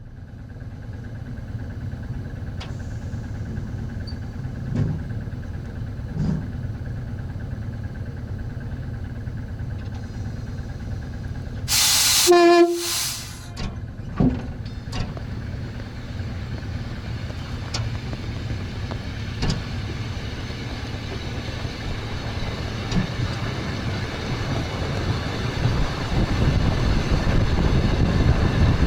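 Express train running on the rails, heard from the front cab: a steady rumble with occasional knocks of the wheels, growing louder near the end. About twelve seconds in comes a loud hiss lasting about a second, with a short tone in it.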